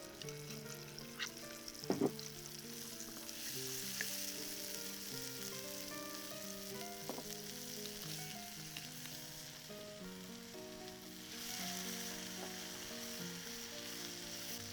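Food frying and sizzling in a hot pan. The hiss swells about three seconds in and again near the end, with a few sharp clicks and knocks, the loudest about two seconds in. Soft melodic background music plays underneath.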